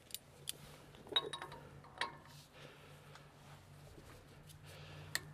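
Light metallic clinks of a steel castle nut socket being handled and fitted onto the rear axle's inner spindle nut, a few separate clicks, over a faint steady low hum.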